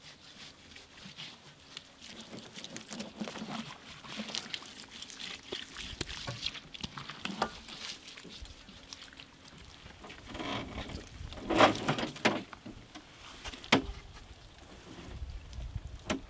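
Hands rubbing and patting wet masala paste into raw whole deer carcasses on a wire grill rack: irregular soft wet handling sounds and clicks, with a louder cluster of handling noise about two thirds through.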